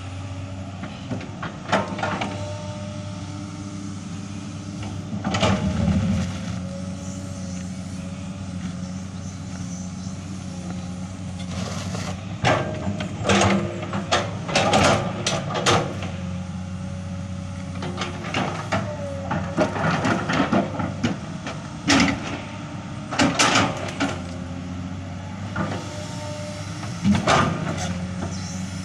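Komatsu PC200 excavator's diesel engine running steadily while it drags logs, with repeated sharp knocks and clanks coming in clusters, most of them in the middle of the stretch and again near the end.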